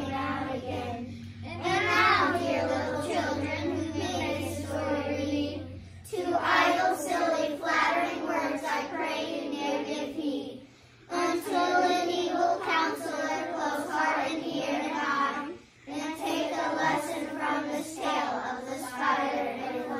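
A group of young children reciting a poem together in unison, in long phrases with short pauses between them.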